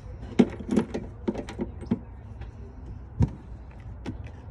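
Irregular sharp clicks and knocks from tools and parts being handled during spark plug work on a car engine, with a louder single knock about three seconds in.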